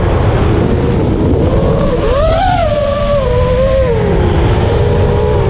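The brushless motors and 5-inch 3D propellers of an FPV freestyle quadcopter whine, their pitch swinging with throttle. The pitch rises sharply about two seconds in, then falls back. A loud low rumble of prop wash and wind on the onboard camera's microphone runs underneath.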